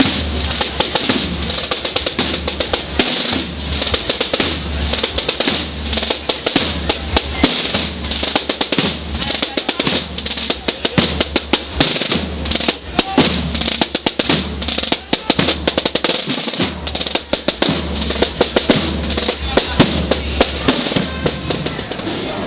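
Marching drums playing fast, continuous snare rolls over bass drum beats, the drum section of a Holy Week procession band.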